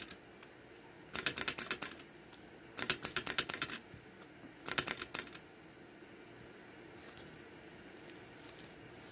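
Guinea pig drinking from the metal sipper tube of a water bottle: rapid clicking in three short bursts as it licks the tube, stopping about five seconds in.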